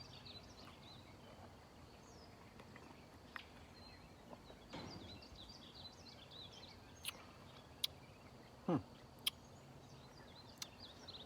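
Small birds chirping and twittering faintly in the background, with a few sharp clicks a little past the middle.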